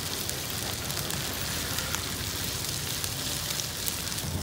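Pieces of sturgeon sizzling in oil in a frying pan over charcoal: a steady hiss with small crackles.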